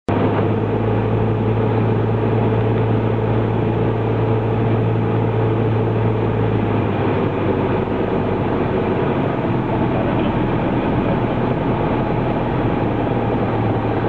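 Cessna 172 Skyhawk's four-cylinder piston engine and propeller droning steadily, heard from inside the cabin on landing approach. The tone shifts slightly about halfway through.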